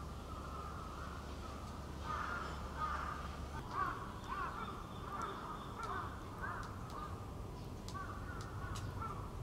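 A rapid series of short animal calls, starting about two seconds in, with a few faint clicks among them.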